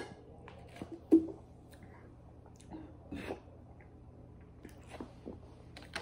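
Gulps of Coke Zero drunk straight from a plastic bottle: a string of short swallowing sounds, the loudest one about a second in.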